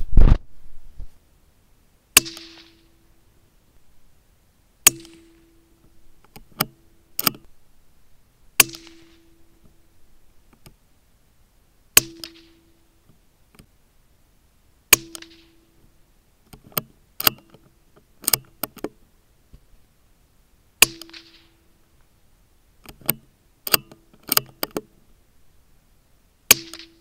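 One loud, deep rifle shot right at the start, then about seven air rifle shots, likely the Walther Rotex RM8 PCP air rifle. Each is a sharp crack followed by a short hiss and a brief ring, with quieter clicks between several of them.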